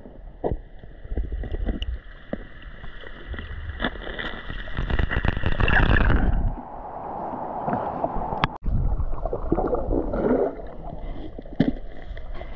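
Muffled water noise picked up by an underwater camera: low rumbling and gurgling as a swimmer moves under water, with sloshing and splashing as the camera comes up to the surface and goes back under. A sharp click sounds about two-thirds of the way through.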